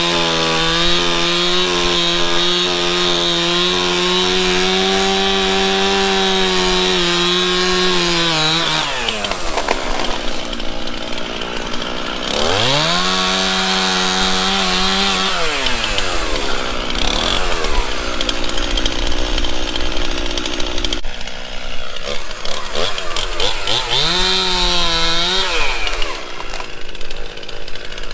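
Two-stroke chainsaw engine held at high revs for about eight seconds, then dropping off to idle; it is throttled up twice more for a few seconds each, once in the middle and once near the end.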